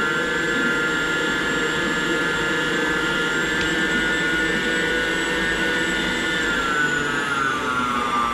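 Electric stand mixer's motor running steadily with a high whine, then slowing with a falling pitch near the end as it is turned down.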